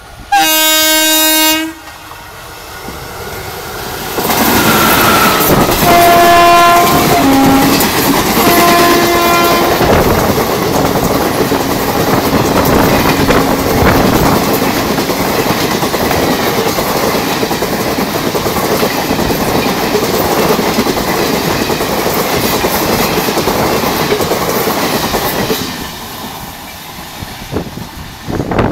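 Indian Railways WAP-4 electric locomotive hauling the Charminar Express through a station at speed. It sounds one long horn blast near the start and two more as it arrives. The noise of the train passing follows and dies away near the end.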